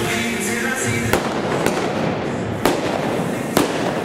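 Four sharp blank gunshots from a .45 revolver loaded with black powder blanks. The last three come at uneven gaps of about half a second, then about a second, then about a second.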